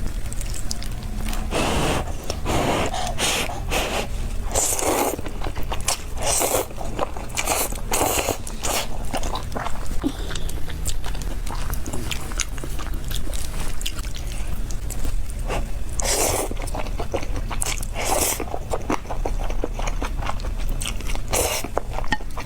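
Close-miked eating: irregular crunchy bites and chewing, with a steady low hum beneath.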